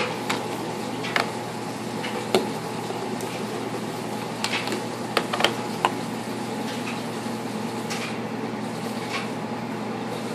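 Plastic baby bottles being handled and shaken on a kitchen counter, giving a scattering of sharp clicks and knocks, most of them bunched about halfway through. Under them runs the steady hum of a washing machine.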